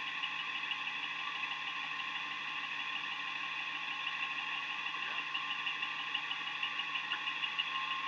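Steady drone of an idling patrol car and electrical hum picked up by a dash-camera microphone, with a fast, even pulsing high tone over it.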